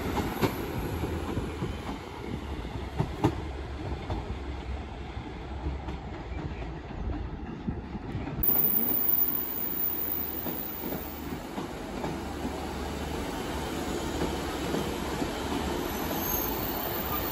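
Northern Class 150 Sprinter diesel multiple unit pulling out and running away down the line, its rumble fading. Then another Class 150 unit rolls along a platform, with a faint wheel squeal near the end.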